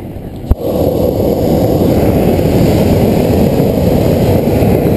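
Hot-air balloon propane burner firing a long blast up into the envelope to heat it: a sharp click about half a second in, then a loud, steady rushing noise.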